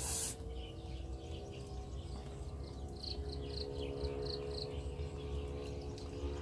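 Rural outdoor ambience: a steady low rumble with a run of short, high-pitched chirps from about three seconds in, and fainter chirping before it.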